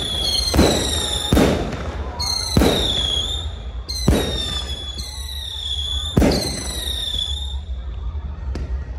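Fireworks display at close range: high-pitched whistles each lasting about a second, cut through by about five sharp bangs of bursting shells.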